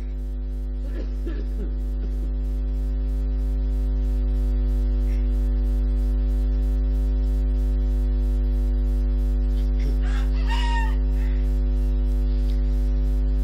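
Steady electrical mains hum from the sound system, growing louder over the first few seconds and then holding. About ten seconds in, a rooster crows briefly.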